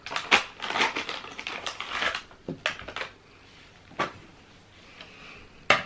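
Silver foil blind bag crinkling and tearing as it is ripped open by hand, a busy crackle that dies down after about three seconds. Two single sharp clicks follow, about four seconds in and near the end.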